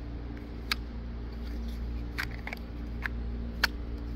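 Handful of short, sharp clicks and taps from a knife with a micarta handle being handled in its moulded Kydex sheath, over a steady low hum. The knife sits tight in the sheath without rattling.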